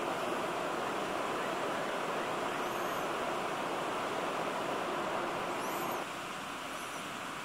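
Steady outdoor rushing noise with a few faint high chirps. The noise drops a step in level about six seconds in.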